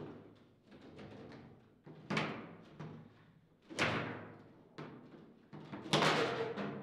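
Foosball table in play: hard hits of the ball struck by the plastic rod men, each ringing through the table. Four hits, the loudest about six seconds in, which is likely the shot that scores.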